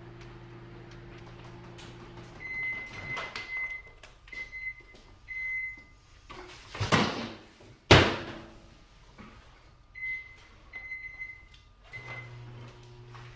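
Office microwave oven: its running hum stops and it beeps three times. Then comes a rushing sound and a sharp, loud slam of the door. A few more short keypad beeps follow, and the hum starts up again as it is restarted.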